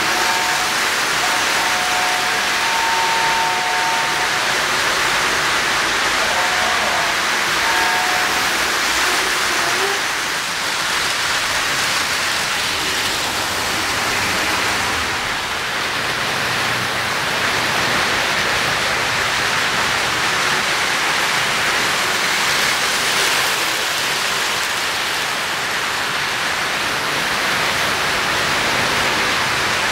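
O-scale Lionel model trains running on three-rail track, a steady rushing rumble of wheels and motors. A two-note train horn sounds briefly a few times in the first eight seconds.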